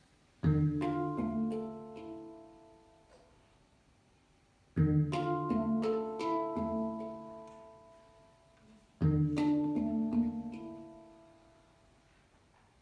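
A Hang, the steel handpan, played with the hands: three phrases of quickly struck notes, each ringing on and slowly fading over a few seconds, roughly four seconds apart.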